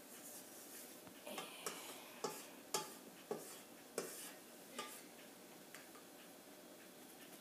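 Light taps and a short scrape of a stainless steel mixing bowl and utensil as whipped egg whites are scraped out of it into another bowl. There are about seven sharp taps, a little under a second apart, from about a second in, thinning out after five seconds.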